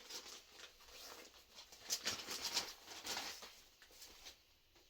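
Irregular rustling and crinkling of packaging being handled as an item is unpacked, with the busiest rustles a couple of seconds in, then dying away near the end.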